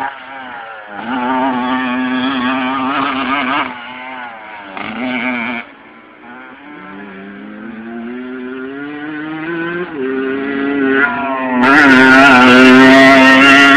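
Motocross dirt bike engine revving and shifting through the gears, the pitch dropping and climbing again several times, then fading as the bike moves off. Its pitch climbs steadily as it accelerates back, and it is loudest near the end as it passes close by.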